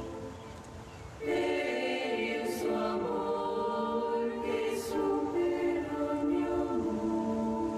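Choral music: a choir singing slow, sustained notes that change pitch in steps, dipping briefly about a second in before swelling back.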